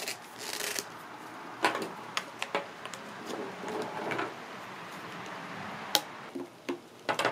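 Half-inch PVC pipe being pushed by hand into PVC tee fittings, with plastic scraping on plastic and a scatter of sharp clicks and knocks as the pieces seat and bump together. The two loudest knocks come about 1.7 s and 6 s in.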